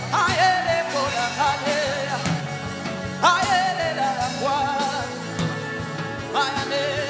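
Slow worship music under prayer: a wordless melody swoops up into long, wavering held notes about every three seconds over a steady low accompaniment.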